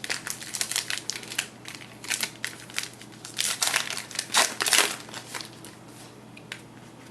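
Wrapper of a trading-card pack crinkling and crackling as it is torn open and handled, a quick run of crackles that is loudest about halfway through.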